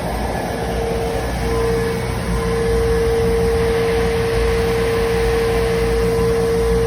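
AC TIG welding arc on aluminium from a Boxer Soldas Q25 welder, a steady buzzing hum with a constant whine over it that steadies about a second and a half in.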